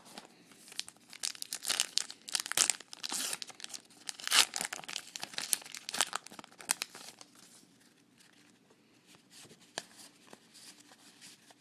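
Foil trading-card pack wrapper being torn open and crinkled, an irregular crackling for about seven seconds, loudest near the middle, then dying down to faint rustling.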